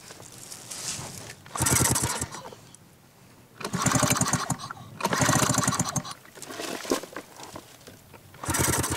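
Outboard motor pull-started four times, each pull spinning the engine over briefly without it running: the spark plug is out and held against the engine block so its spark lights fuel-soaked grass.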